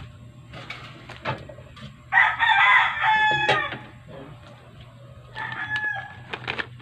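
A rooster crowing: one loud crow about two seconds in, lasting about a second and a half, then a fainter call near the end.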